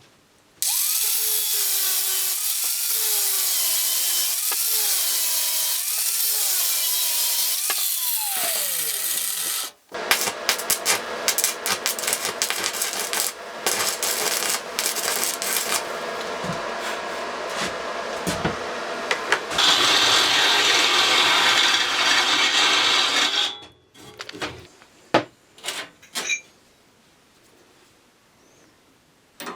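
Electric power tool running under load, its motor pitch dipping and recovering, then spinning down about nine seconds in. It starts again right away for a longer stretch of working noise full of sharp knocks, and stops about 23 seconds in, leaving a few light clicks.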